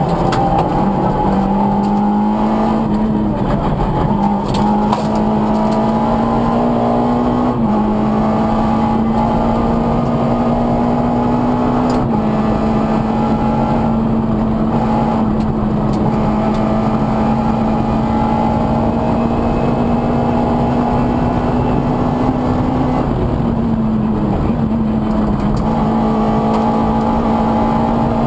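Rally car's engine at sustained high revs, heard from inside the cabin. Its pitch holds nearly level and drops in quick steps at a few gear changes, about four, eight, twelve and twenty-three seconds in.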